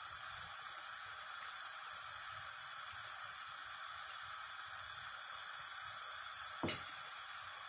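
A pot of water with onion and carrot heating on the stove, giving a steady hiss as it comes up to the boil. One short knock near the end.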